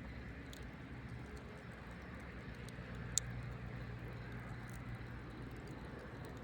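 Campfire burning with a low steady rumble and scattered light crackles, and one sharp pop about three seconds in.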